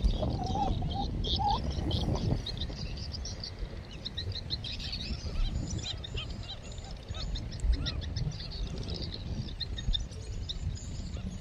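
A flock of whistling ducks calling, with many short, high whistles overlapping throughout. Wind rumbles on the microphone underneath, stronger in the first couple of seconds.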